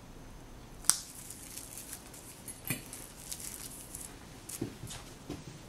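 Quiet handling sounds from hands working over a poodle's wrapped coat: soft rustling of hair and wraps, with a sharp click about a second in and a few fainter taps after.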